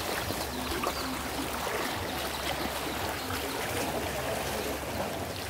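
Flowing river water: a steady rushing noise from a fast current.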